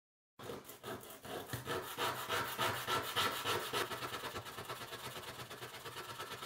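Wooden lollipop stick rubbed back and forth on 100-grit sandpaper glued to a board, sanding a chamfer onto its end: a quick, rhythmic scratchy rasp of several strokes a second, starting about half a second in.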